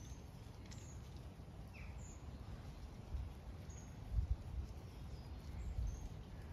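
Wind buffeting the microphone in a gusty low rumble, with a few heavier low thumps in the second half. Small birds give short, high chirps every second or so.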